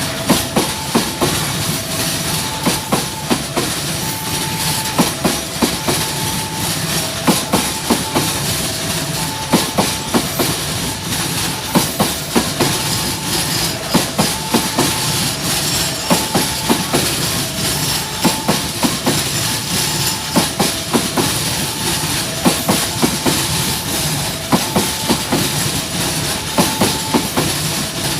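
Railway wagons rolling past close by, their wheels clacking over the rail joints in a steady repeating rhythm of paired beats.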